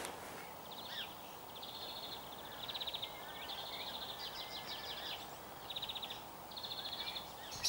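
Small songbirds singing a run of short, fast trills, each about a second long, one after another, over a faint steady background hiss.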